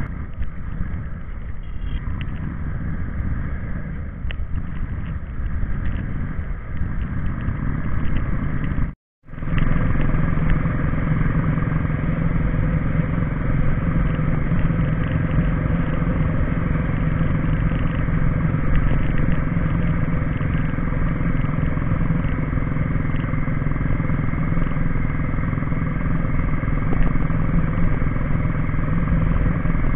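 Royal Enfield Bullet Electra 350's single-cylinder engine running steadily as the motorcycle is ridden at road speed, heard from the rider's seat. The sound cuts out for a moment about nine seconds in.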